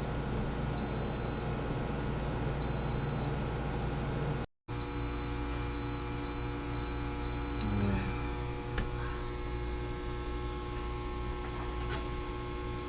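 Short high electronic beeps repeating about every two seconds, then a quicker run of several, over a steady machine hum.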